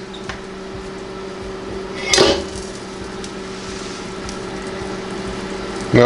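A metal cooking pan clunking and scraping once, about two seconds in, as it is pulled out of the combination microwave oven, over a steady low hum.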